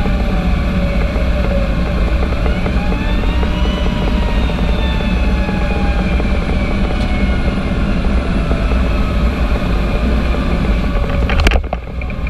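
Fire engine under way, its diesel engine and road noise making a steady, fluttering low rumble, while a siren glides up and down in pitch over it. A sharp knock comes near the end, and the rumble drops briefly.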